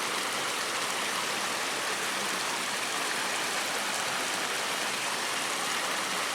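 Flowing water of a stream or channel rushing steadily, an even hiss with no change.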